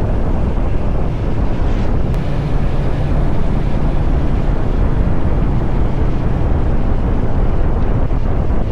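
Kawasaki Z900 SE's inline-four engine running through an SC Project CR-T exhaust while riding, at a steady level, with wind buffeting the microphone.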